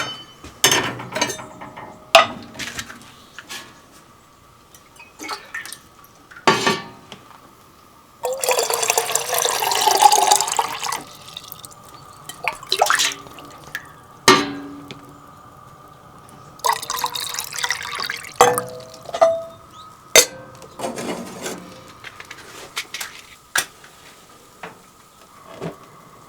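Water poured into a kitchen vessel twice, a few seconds each time, the second pour rising slightly in pitch as it fills, amid clinks and knocks of kitchenware. A faint steady hum runs underneath.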